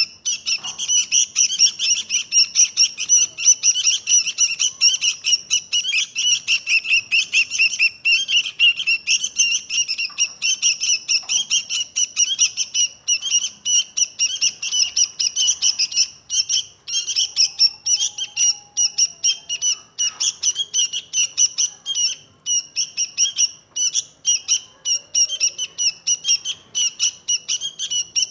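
Sooty-headed bulbul (kutilang) chirping in a fast, continuous run of short, high, sharp notes, several a second, with only brief breaks.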